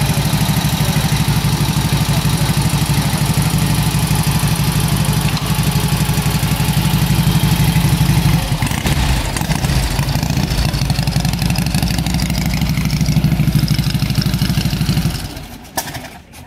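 1946 Indian Chief's side-valve V-twin engine running after restoration. It runs steadily, goes uneven for a couple of seconds in the middle, then steadies and is shut off near the end, dying away within about a second.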